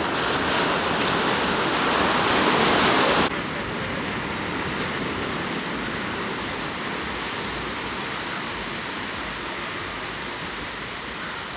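Surf washing on a sandy beach as an even rushing noise. It is louder at first and drops off suddenly about three seconds in to a lower, steady wash of waves.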